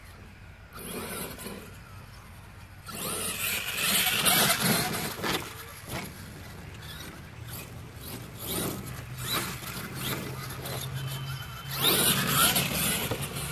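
Radio-controlled HPI Savage XL monster truck converted to a brushless electric motor, accelerating in bursts across a grass field with its motor and drivetrain whining. The first seconds are quieter, and the sound is loudest about twelve seconds in, when the truck passes close.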